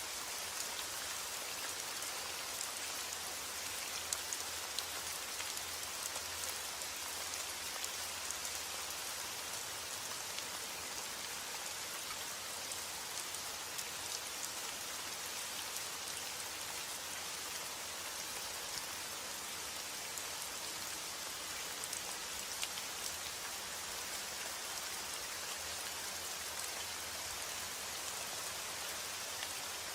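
Steady rain falling: an even, dense hiss with scattered sharper ticks of individual drops.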